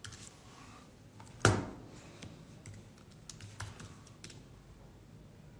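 Typing on a computer keyboard: scattered keystrokes and clicks, with one loud clack about a second and a half in and a few more clicks around three to four seconds in.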